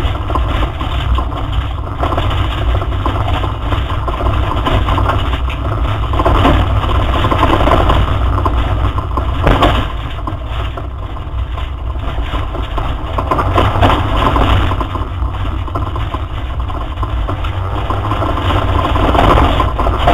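Opel Astra GSi rally car's engine working hard under racing load, heard from inside the cabin, its level rising and falling with road and tyre noise. A sharp knock stands out about ten seconds in.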